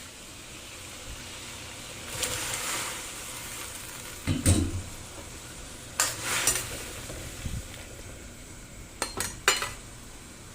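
Steady hiss of a pot of water heating on the stove, with a handful of sharp clinks and knocks of pots and kitchen utensils.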